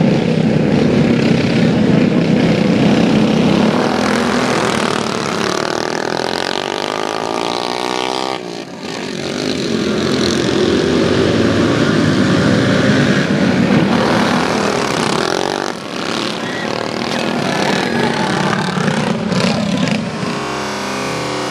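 Racing kart engines running hard on track, their pitch rising and falling as the karts accelerate and brake, with two brief drops in level about eight and sixteen seconds in.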